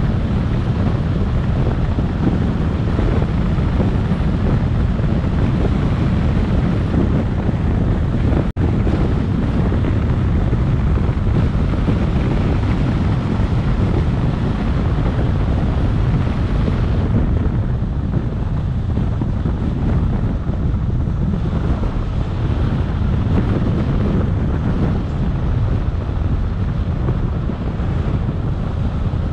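Steady low wind rumble on the microphone of a camera on a moving car, mixed with road noise. It cuts out for an instant about eight and a half seconds in, and the hiss softens a little a bit past halfway.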